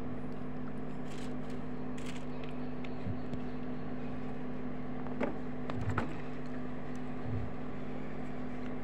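Steady electrical hum from a public-address microphone and loudspeaker system, with a few faint short knocks around the middle.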